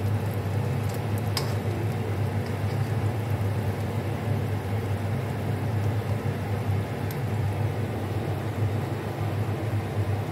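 Steady low machine hum with a hiss over it, unchanging throughout, from a kitchen where fish in asam sauce is simmering in a pan; a faint tick or two.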